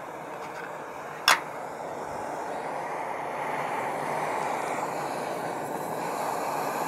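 Backpacking butane stove burning with a steady hiss of gas, growing gradually louder as the flame is turned up toward full blast. A single sharp click about a second in.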